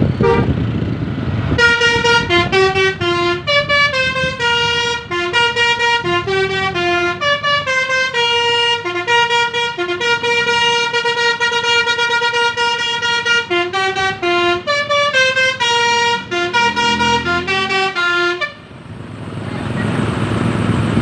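A bus's telolet basuri musical horn playing a long tune of short and held notes. It starts about a second and a half in and stops near the end, with vehicle noise before and after it.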